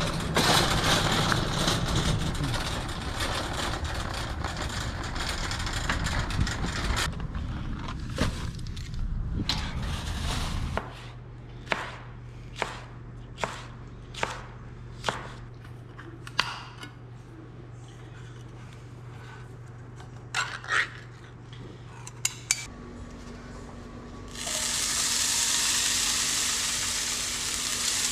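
Loud, unidentified noise for about ten seconds. Then a steady hum with a string of sharp clicks and knocks of kitchen utensils and dishes. About 24 seconds in, bacon starts frying with a steady sizzle.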